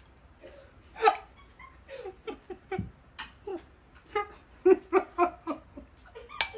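A man laughing and chuckling in short breaths, then a sharp clink of a metal spoon against a ceramic bowl near the end.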